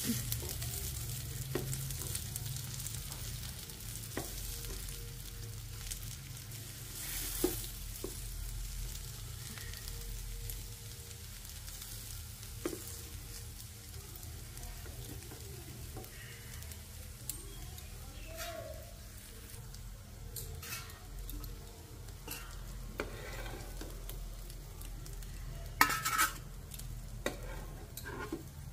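Egg-and-Maggi noodle omelettes sizzling in oil on a non-stick tawa while a metal spatula cuts and scrapes through them against the pan, with scattered taps. A louder clatter comes near the end as the spatula lifts pieces out.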